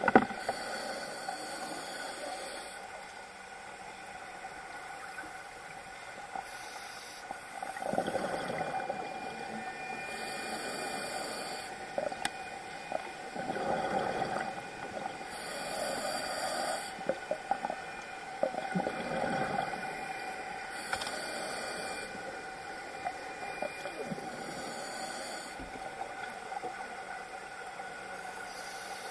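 Scuba diver breathing through a regulator underwater: a hiss on each inhalation, roughly every five seconds, with a rush of exhaled bubbles in between.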